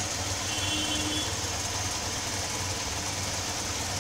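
Auto-rickshaw engine running steadily, heard from inside the passenger cabin.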